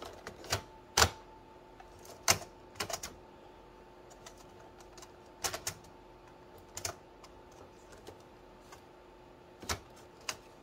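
Irregular sharp plastic clicks and knocks from the parts of an Epson XP-15000 inkjet printer as the roller assembly, its screws removed, is worked loose by hand.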